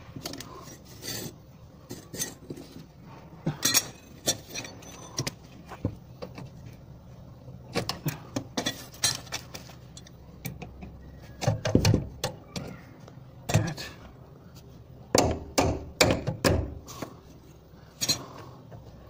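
Metal hand tools clinking and knocking against a car's underbody and exhaust hanger: irregular clicks and knocks, with a few louder knocks in the second half.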